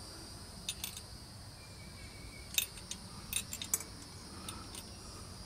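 Light metallic clicks and clinks of small Briggs & Stratton engine parts being handled and fitted by hand, in a few short clusters.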